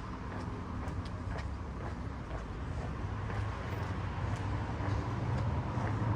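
City street traffic: a low vehicle engine rumble that grows slightly louder toward the end, with a few faint ticks over it.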